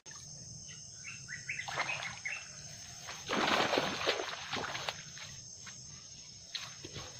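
Riverside ambience: a steady high insect drone with a quick run of bird chirps, and a loud noisy burst lasting about a second and a half a little over three seconds in.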